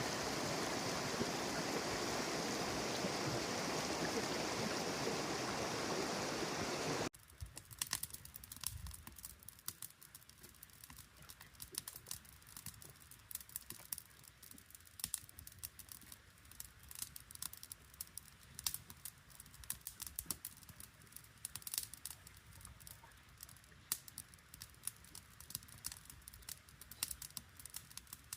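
Steady rushing of a flowing stream. After a sudden cut about seven seconds in, a much quieter stretch of many irregular sharp crackles and clicks.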